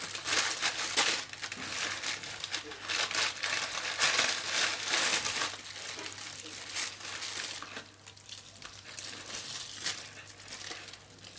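Thin plastic bags and cling film crinkling and rustling as they are peeled and pulled apart by hand, in irregular bursts, busier in the first half and quieter after about seven seconds.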